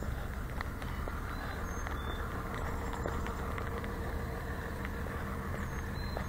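Steady low rumble and hiss of outdoor background noise, with faint irregular taps of footsteps on a concrete sidewalk.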